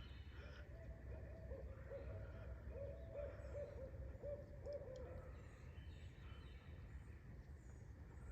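A pair of owls calling to each other: a run of hoots that quicken into a string of rising-and-falling notes, stopping about five seconds in.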